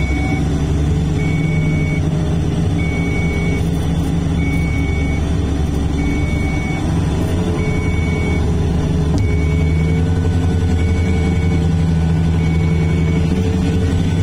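Komatsu HD465-7R dump truck's diesel engine running steadily while driving, heard from inside the cab, its pitch lines growing stronger about ten seconds in. A short high beep repeats about every one and a half seconds over the engine, stopping near the end.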